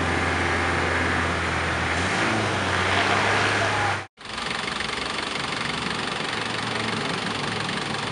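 Nissan Frontier diesel engine running with a low steady hum, cut off abruptly about four seconds in and followed by a rougher, clattering idle. The engine is one that is belching heavy smoke.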